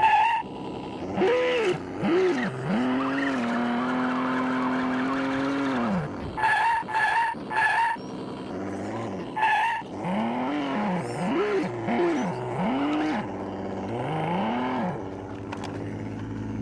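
Electric motor of an RC off-road car whining, its pitch rising and falling as the throttle is blipped in short bursts, with one longer steady run. Short high chirps sound in a quick group of three about six and a half seconds in, and once more near ten seconds.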